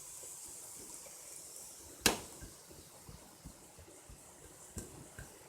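Paneer and tofu cubes being added to a pan of cooked masala vegetables over a faint steady sizzle, with soft scattered ticks, a sharp knock about two seconds in and a smaller knock near the end.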